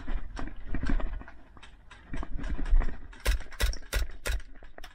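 Hurried footsteps on dirt, then, about three seconds in, an airsoft pistol (an XD-style replica) firing a quick string of sharp shots, about three a second.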